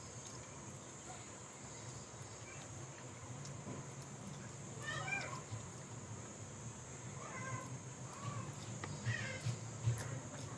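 An animal calling three times in short rising-and-falling cries, over a steady low hum, with a few sharp clicks near the end.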